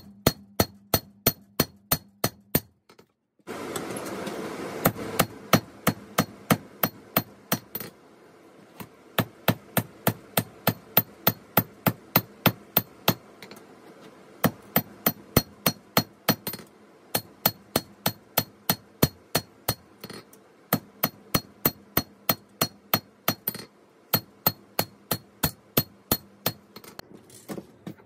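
Hammer blows on a 5160 spring-steel blade against an anvil while forging, about three strikes a second in runs broken by short pauses, each blow ringing brightly. A loud rushing noise comes in about three and a half seconds in and dies away over the next few seconds.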